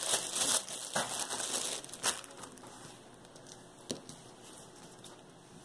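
Small plastic bag crinkling as it is handled in the hands, dying down after about two seconds, with two sharp clicks about two seconds apart.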